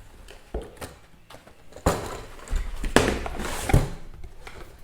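Speaker packaging being handled during unboxing: a few knocks against the box, with a stretch of rustling from the plastic wrapping in the middle.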